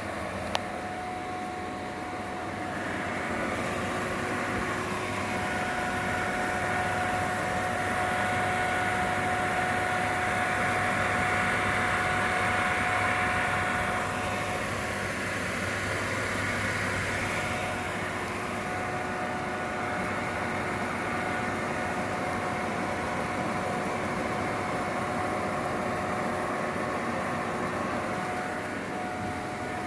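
Milestone Start D microwave digestion system running: a steady hum of fans with a constant tone, swelling louder from a few seconds in until about halfway, with a single click right at the start.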